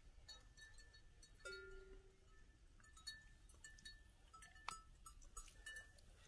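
Near silence, with scattered faint clinks and one brief ringing tone about a second and a half in.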